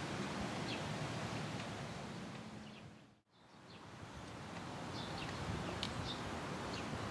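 Outdoor garden ambience: a steady rushing background with scattered short bird chirps. About three seconds in, the sound fades out to silence and fades back in.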